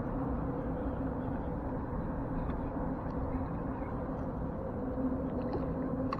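Small Yamaha outboard motor idling, a steady even hum.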